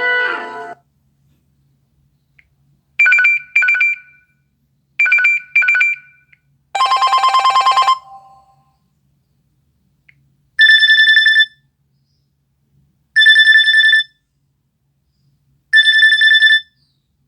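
Classic LG phone ringtones played through a smartphone speaker. A musical tone fades out at the start. Then come two pairs of short electronic double beeps and a brief fast trill, followed by an electronic bell-like ring repeated three times, about every two and a half seconds.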